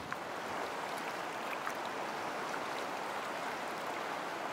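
River water rushing over rocks in a shallow riffle, a steady even rush.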